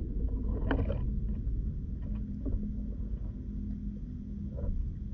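Low, muffled rumble of water heard from inside an underwater camera's housing, with a few faint clicks and knocks, the clearest a little under a second in.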